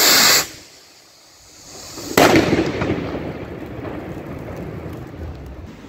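Ground firecrackers going off: a short sharp burst at the start, a brief lull, then a loud bang about two seconds in followed by a long fading rumble and crackle.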